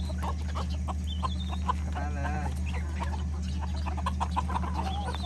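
Birds calling: many short, quick calls, one after another, over a steady low hum.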